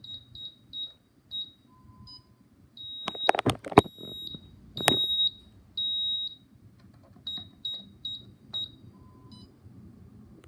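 ADT Pulse alarm system beeping a rhythmic pattern of high-pitched tones, likened to a song with a beat: short quick beeps, then several longer held tones, then short quick beeps again. A few sharp knocks sound about three to five seconds in.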